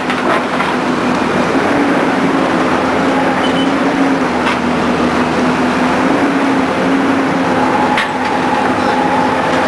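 A rotary drilling rig running steadily, with a constant engine hum. Two short knocks come about halfway through and near the end.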